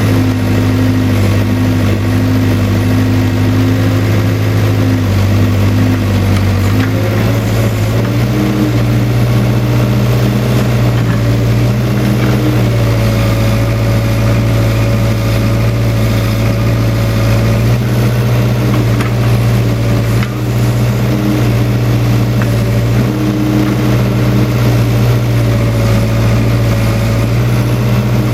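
Case 580K backhoe's diesel engine running steadily at working speed, its pitch stepping up slightly about seven seconds in.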